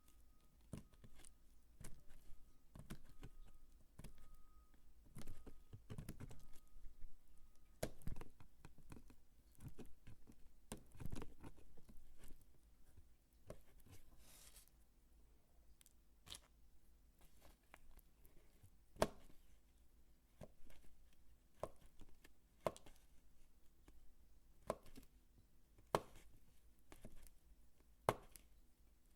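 Bar soap being chopped and crumbled close to the microphone: irregular crisp cuts and crunches, with several sharp single chops in the second half. A faint short beep repeats about twice a second for the first several seconds.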